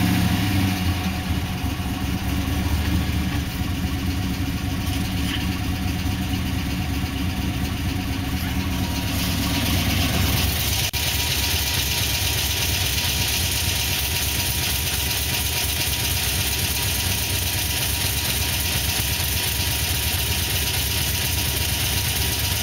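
Pontiac GTO's LS2 6.0-litre V8 idling steadily, recorded to check for piston slap, a knock the owner is unsure of. About ten seconds in the sound turns brighter and hissier.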